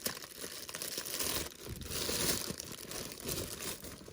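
Packaging wrap crinkling and tearing as it is handled and pulled off the lamp parts, a continuous crackly rustle.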